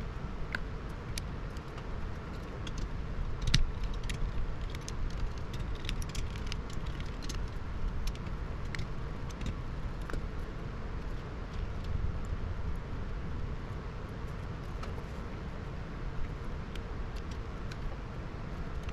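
Scattered light clicks and taps of small tools and parts being handled while a graphics card is taken apart, over a steady low rumble; the loudest click comes about three and a half seconds in.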